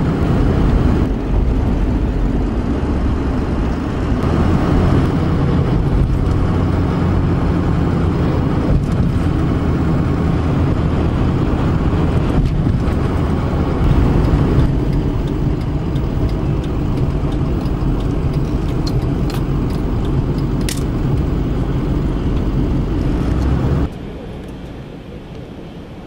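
Road and engine noise inside a moving truck's cabin, a loud, steady low rumble that drops off sharply near the end as the truck comes to a stop.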